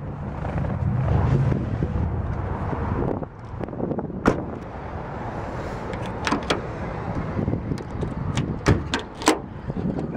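A car door shut with a knock, then light clicks at the trunk lock of a 1993 Cadillac Sedan DeVille, and three sharp clacks as the trunk latch releases and the lid opens.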